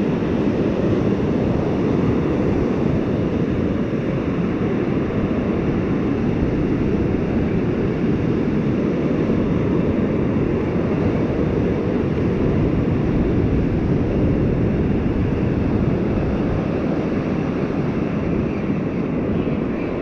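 Steady wind rumble on the microphone, mixed with surf washing up the beach.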